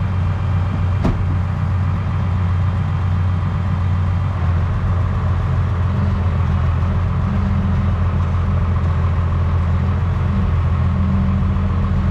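Tractor engine running steadily, heard from inside the cab as a constant low hum. A single sharp click sounds about a second in.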